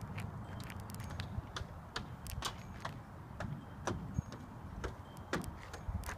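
Irregular sharp clicks and taps, about three a second, over a steady low rumble.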